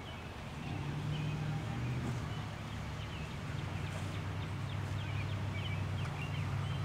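Small birds chirping in short, quick notes over a steady low drone that swells up a little under a second in and holds.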